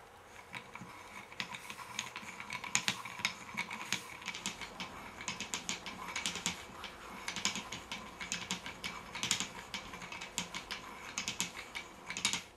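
Hand-cranked wooden cam mechanism: a lobed wooden cam wheel turning against a wooden follower, making quick runs of irregular wooden clicks and clacks as the follower rides over the lobes.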